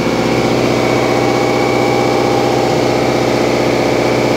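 An engine running steadily aboard a boat, a constant humming drone with a fine rapid pulse.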